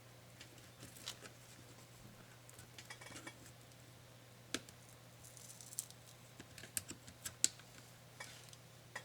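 Scattered light clicks and taps of small laptop parts and tools being handled during disassembly, with a few brief rustles and a quick run of clicks near the end, the sharpest about a second before the end; a faint steady low hum sits underneath.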